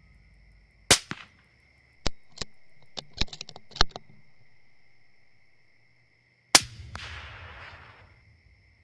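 Two rifle shots at coyotes, about six seconds apart, the second trailing off for about a second. Between them comes a quick run of sharp metallic clicks. A steady high insect chirring runs behind.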